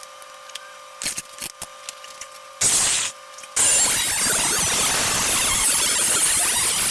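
A few clicks, a short burst from a power cutting tool, then from about three and a half seconds in a loud steady hissing run of it with a wavering high whine, cutting through car-body sheet metal.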